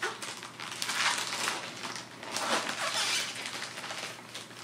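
Clear plastic packaging bag crinkling and rustling in irregular bursts as a package holding a T-shirt is opened by hand.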